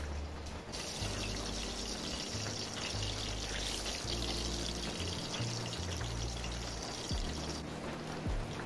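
Garlic and pepper sizzling in hot cooking oil in a pot over a wood fire. A steady hiss starts about a second in and eases near the end. Background music with a low bass line plays throughout.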